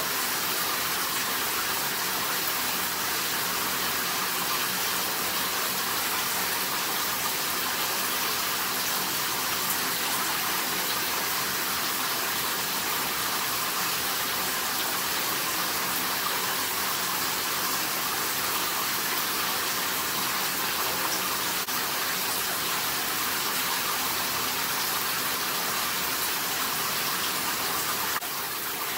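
Steady rush of a running shower, the water hissing at an even level throughout.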